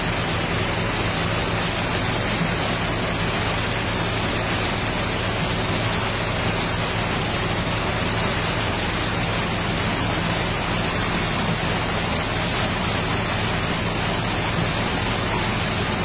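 Steady rush of heavy rain and fast-flowing floodwater, with the low, even drone of the excavator's diesel engine underneath.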